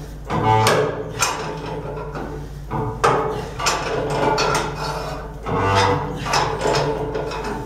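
Irregular metallic knocks and clanks, each ringing briefly, from work on a thick-walled steel stay tube being fitted into a Cochran boiler's tubeplate.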